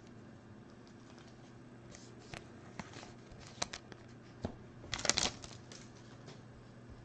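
Trading cards and pack wrapping being handled: a few light clicks and taps, then a short crinkling rustle about five seconds in, over a faint steady hum.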